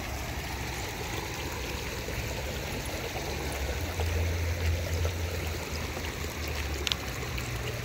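Shallow river water running steadily over the gravel bed of a restored channel, an even rushing and trickling. A low rumble swells briefly in the middle.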